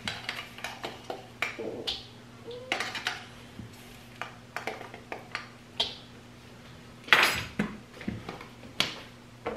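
A metal measuring spoon clinking and scraping against a small container as a dry baking ingredient is scooped and levelled. It comes as a string of short sharp clicks, with a longer, louder scrape or rustle about seven seconds in.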